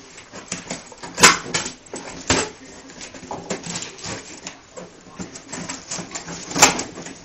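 A knife slicing through packing tape along the seam of a cardboard box, with scraping of the cardboard and a few sharp rips, the loudest about a second in and again near the end.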